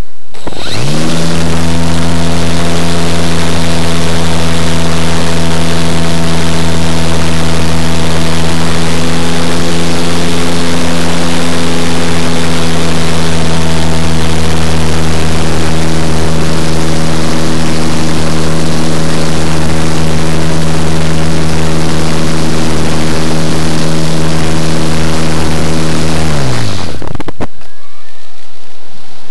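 Easy Glider Pro RC glider's electric motor and propeller running at full power during a climb, a loud steady hum picked up by the onboard camera. It spins up about half a second in and winds down with a falling pitch near the end as the motor is cut for gliding.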